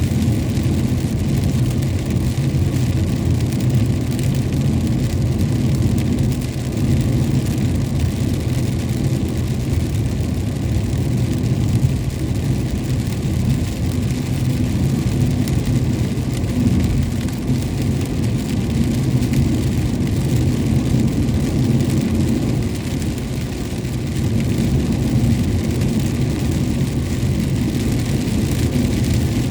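Steady road and engine rumble of a vehicle driving on a wet highway in the rain, with the hiss of rain and spray mixed in.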